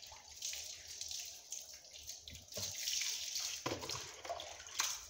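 Water being poured over a wet dog and splashing onto a concrete floor, coming in several bursts, with a few short clicks.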